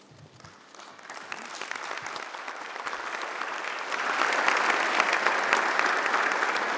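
Audience applauding, a dense patter of many hands clapping that swells over the first four seconds and then holds steady.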